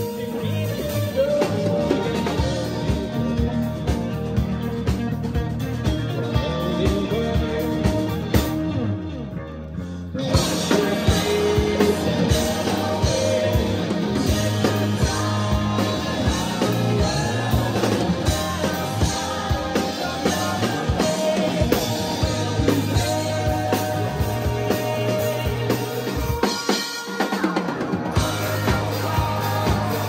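Rock band playing live through a club PA: a man's lead vocals over electric guitars, bass and a drum kit. About eight seconds in the band thins out for two seconds, the cymbals and top end dropping away, then comes back in full. The bass drops out briefly near the end.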